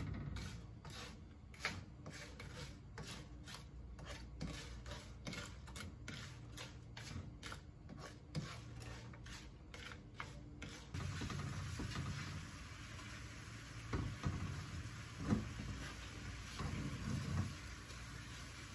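Plastic spatula stirring and scraping lumps of palm sugar melting in a non-stick wok, in repeated strokes about two a second. About eleven seconds in, a steady sizzling hiss of the boiling sugar syrup takes over, with a few louder knocks of the spatula against the pan near the end.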